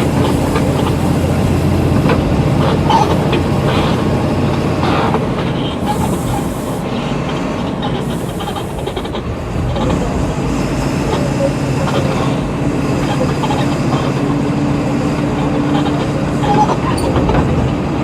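Volkswagen Volksbus 17.230 EOD bus driving, its diesel engine running steadily under a rattling body; the engine note drops for a couple of seconds in the middle, then picks up again.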